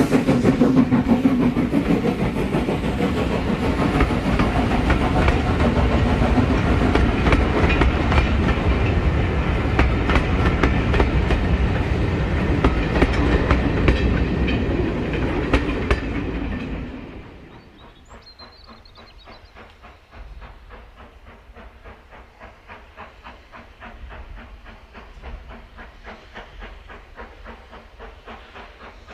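A train running past, its wheels clattering over the rail joints. The sound is loud for about seventeen seconds, then falls away sharply, leaving fainter, regular clicking.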